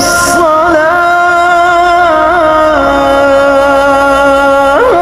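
Middle Eastern-style music: a single melodic line held in long, steady notes with quick ornamental turns between them.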